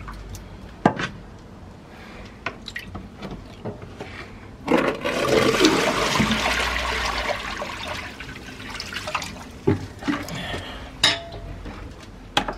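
A plastic bucket of dirty radiator-flush water being tipped out onto concrete beside a drain: a loud rush and splash of pouring water lasting about four seconds, starting about five seconds in. Sharp knocks and clicks of the bucket being handled come before and after the pour.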